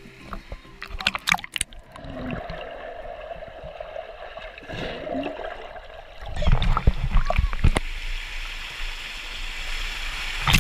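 Swimming-pool water splashing and gurgling around a GoPro camera held at the surface. About six seconds in it turns to a loud, muffled low rumble with the camera underwater.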